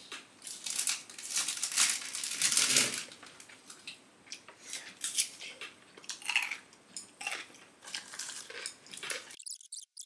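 Spoon and chopsticks clicking and scraping against a food container while a beef rice bowl is eaten. The handling is busiest and loudest in the first few seconds, then turns into scattered clicks, and the sound cuts off abruptly near the end.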